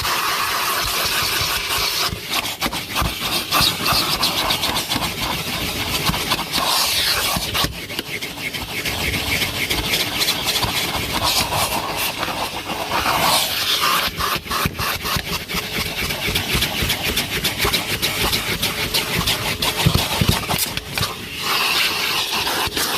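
Numatic NTD570 commercial vacuum cleaner running with its motor under suction while the nozzle works over the car's interior. Frequent short knocks and scrapes come from the nozzle rubbing on carpet and trim.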